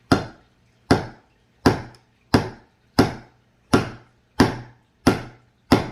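A geode being struck over and over, about nine evenly spaced sharp knocks, roughly one and a half a second, each dying away quickly.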